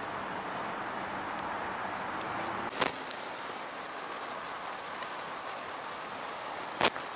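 Steady rushing noise of fast-flowing floodwater, broken by a sharp click about three seconds in. After the click a quieter outdoor hiss continues, with another click near the end.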